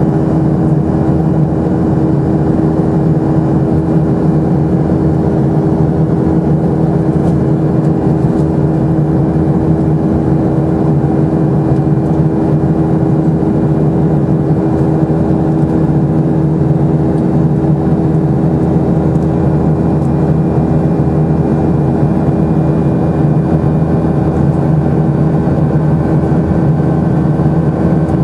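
Steady drone of a Boeing 737-800's CFM56 jet engines and rushing air, heard from inside the cabin in flight, with a few constant humming tones in it and no change in level.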